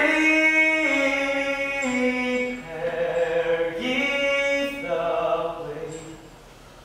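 An ensemble of voices singing a cappella in a chant-like style, holding long notes in harmony that step from pitch to pitch. The phrase begins sharply at the start and fades out about five seconds in.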